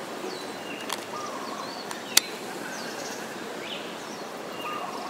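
Steady street ambience with birds chirping now and then, and a sharp click a little over two seconds in.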